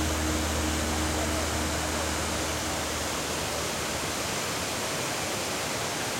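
Steady roar of a large waterfall, the Narmada's Dhuandhar Falls plunging through a marble gorge, heard as an even rushing noise. The last low tones of background music fade out in the first couple of seconds.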